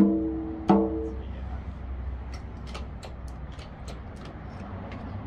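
A barrel-bodied taiko with a freshly stretched rawhide head struck twice with a stick, about two thirds of a second apart. Each hit rings with a clear pitch for about half a second: the head is being tested for tone while it is still in the stretching rig. Faint clicks and taps follow.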